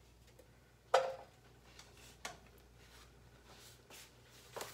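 Kitchen utensil handling: a sharp clink with a brief ring about a second in, then a lighter knock a little after two seconds and a few faint ticks near the end, over a low steady hum.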